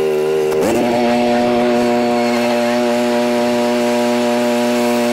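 Small gasoline engine of lawn-care equipment running steadily. About half a second in it shifts to a higher, very steady pitch.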